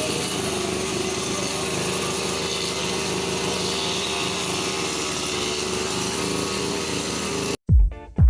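Brush cutter's small engine running steadily at a constant speed, cut off abruptly near the end by music with a heavy beat.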